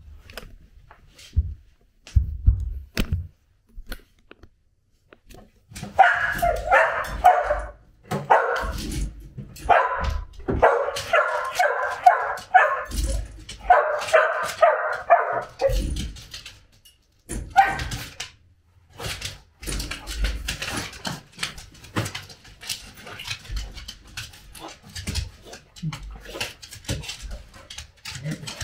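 Samoyed dog greeting her owner with a long run of excited growl-like moaning and whining that sounds almost angry but comes from joy, starting about six seconds in. Shorter outbursts and scattered clicks follow.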